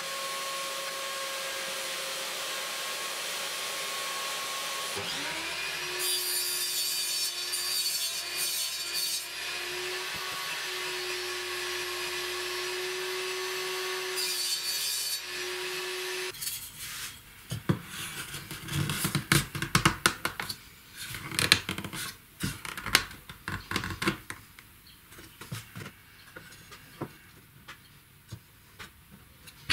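Table saw running, its note changing about five seconds in as the blade cuts through plywood; it stops abruptly partway through. Then a series of sharp clicks and knocks from wooden box parts and a metal rod being handled on a workbench.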